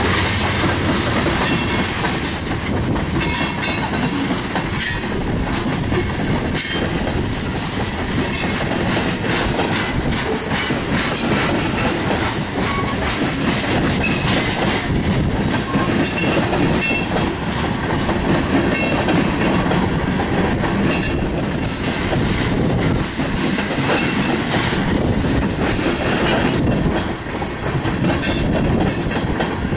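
Ferromex freight train of gondola cars rolling past close by: steel wheels rumbling on the rails and clattering over the rail joints in a constant run of clicks.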